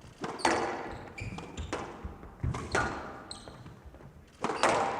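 Squash rally: the ball is struck hard by racket and wall in quick double cracks about once every second or two, each echoing in the hall. Between the strikes come short high squeaks of players' shoes on the court floor.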